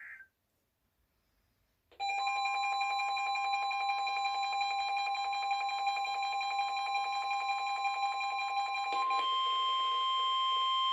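NOAA Weather Radio alert signal: after the last data burst and about two seconds of silence, the steady warning alarm tone sounds together with several weather alert receivers' beeping alarms. A couple of the alarms cut off about nine seconds in, while the long steady tone carries on to the end.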